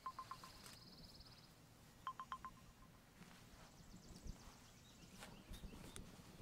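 Near silence: faint outdoor ambience with a few short, high chirps and a fast high trill. The engine is not running.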